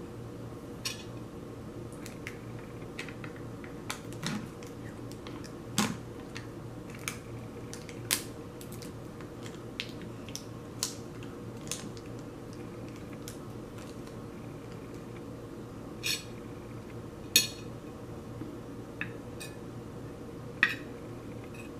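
Scattered sharp clicks and taps from cooked shrimp being peeled by hand and from a spoon and fork knocking against a ceramic plate, over a steady low background hum. The loudest taps come near the end.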